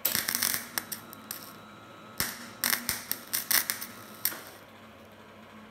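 Gasless flux-cored MIG welding arc on steel plate, in two bursts of about a second and a half and two seconds, stopping about four and a half seconds in. The welder is giving far too little power at this setting.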